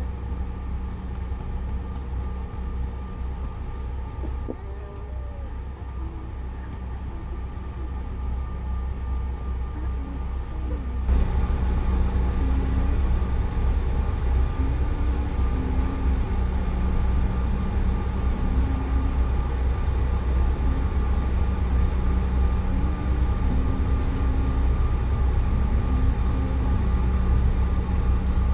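Cabin noise of a Bombardier CRJ900 jet: the steady hum of its rear-mounted turbofan engines and airflow, with a few steady tones. About eleven seconds in it becomes suddenly louder and stays louder.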